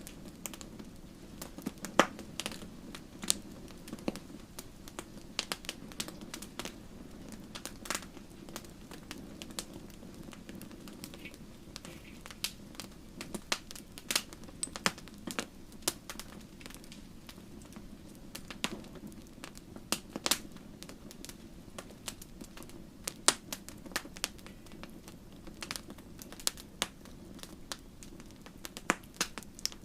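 Wood bonfire burning, crackling with sharp irregular pops, several of them a second, over a low steady rush.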